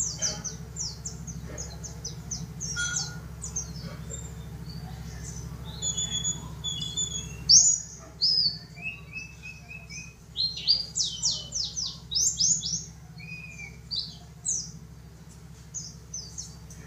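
Yellow-breasted white-eye (pleci dakun) singing: rapid runs of high, thin chirps, each note falling in pitch, in quick bursts with short gaps.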